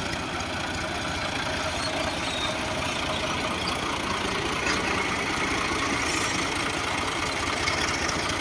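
Diesel tractor engines running steadily, one tractor moving slowly closer so that the sound grows slightly louder.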